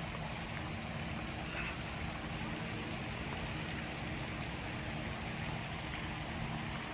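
Steady outdoor nature ambience: a continuous noisy wash with a faint low hum beneath it, and a few faint, short high chirps in the second half.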